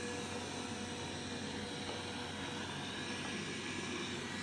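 Robot vacuum cleaner running with a steady whirring hum of its motor, with a sneaker caught against its front.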